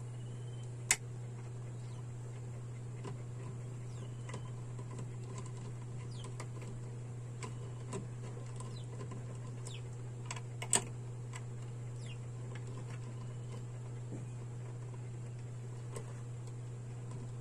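Scattered small clicks and taps of a screwdriver and wire ends at a circuit breaker's terminal screws as they are tightened, with two sharper clicks, one about a second in and one a little past the middle, over a steady low hum.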